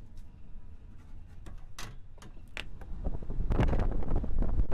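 A few sharp clicks and knocks of the crane cab's door being handled, then strong wind buffeting the microphone, building up from about three seconds in as the wearer steps out of the cab.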